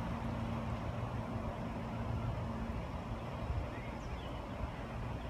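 Steady low mechanical hum and rumble, with a faint short high chirp about four seconds in.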